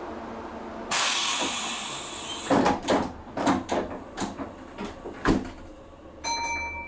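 Kintetsu limited express train's sliding doors closing: a sudden loud hiss of air about a second in, then a string of knocks and thuds as the doors shut along the train. A high, steady electronic tone starts near the end.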